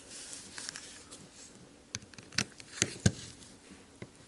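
Small sharp clicks and taps of a folding knife and a Torx driver being handled, as the driver is set to the knife's pivot screw, over a faint rustle. The clicks come in a loose string of about five from two seconds in.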